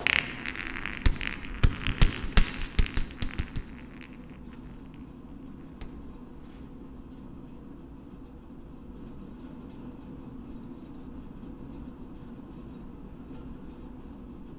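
Inflatable exercise ball bouncing on a hard floor: about ten thumps over three seconds, coming closer together as it settles. Then a steady low hum.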